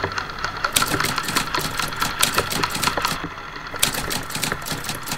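Airsoft guns firing rapid full-auto bursts: several trains of sharp clicks, the first about a second in and more after two and four seconds, over a steady hum.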